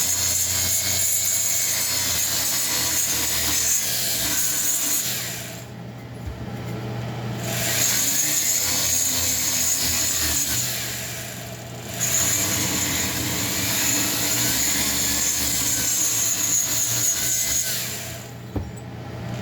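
Rotary tool spinning a stone grinding bit against the port edges of an Echo CS-8000 chainsaw cylinder, a steady grinding with a high whine. It smooths out chatter marks left by a diamond bit so the piston rings will pass the ports. The grinding lets off briefly three times, about five seconds in, about eleven seconds in and near the end.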